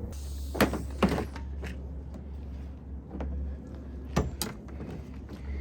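A few sharp knocks and clanks of equipment being loaded up, with a door-like bang, over a low steady hum.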